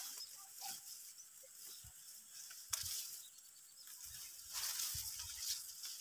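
Dry rice stalks and leaves rustling in bursts as the crop is handled at harvest, with a sharp click a little under three seconds in.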